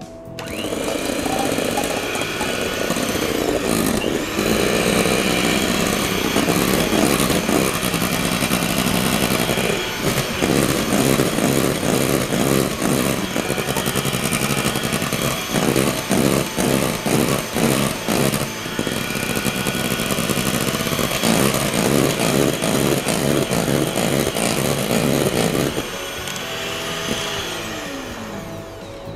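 Electric hand mixer running continuously, its beaters whipping egg whites in a bowl. It eases a little near the end.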